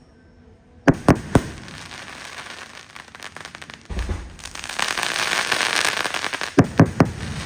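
Aerial fireworks: three sharp bangs about a second in, then crackling, a low thump near the middle, and a dense crackling shower that swells before a quick run of bangs near the end.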